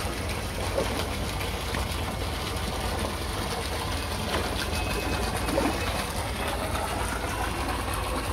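Spinning fishing reel being cranked to wind in a hooked fish, over a steady low rumble.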